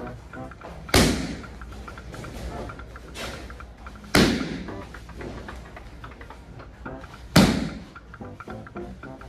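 Three kicks slapping into handheld Thai kick pads, about three seconds apart, each a sharp loud smack. Music plays underneath.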